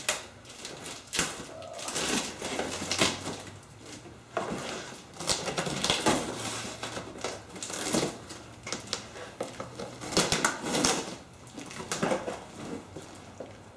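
Packing material and cardboard rustling and crinkling as a shipping box is unpacked by hand, with many irregular sharp crackles.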